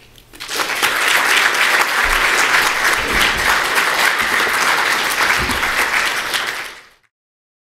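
Audience applauding, a dense steady clapping that starts about half a second in and fades out quickly to silence near the end.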